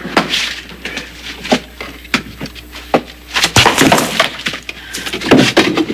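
Wood being forced and struck: a string of knocks and cracks, with a denser clatter of wood about three and a half seconds in.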